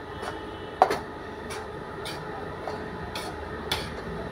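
Metal spatula scraping and knocking against a small metal kadhai in a rhythm of sharp strokes, about three every two seconds, as gram flour (besan) is stirred and roasted for laddoos.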